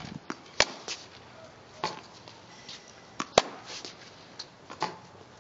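Tennis ball impacts on an outdoor hard court: a series of sharp pops from racket strikes and ball bounces, roughly one every second or so. The loudest comes a little past the middle, with softer shoe scuffs in between.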